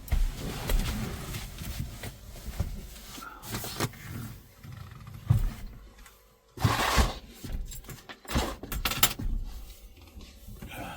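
Someone moving about and handling things inside a van: irregular rustling, bumps and knocks, with a louder scraping rush about seven seconds in and a quick run of clicks and knocks just after.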